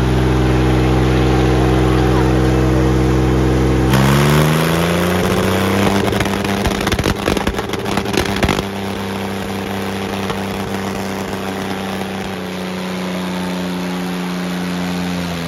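Tractor diesel engine running steadily under load, then revving up about four seconds in and holding at the higher speed. A few seconds of crackling noise sit over it midway, and the revs start to drop near the end.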